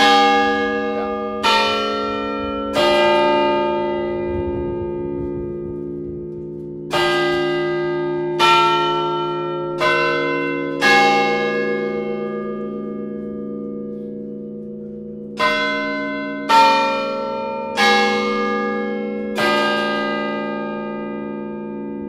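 Large bronze tower chime bells struck by hammers, playing a slow tune in four-note phrases separated by pauses. Each note rings on and overlaps the next. This is the chime before the hour strikes.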